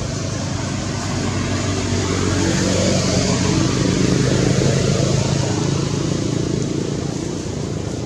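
A motor vehicle driving past: a steady engine hum that grows louder to its peak about four seconds in, then fades.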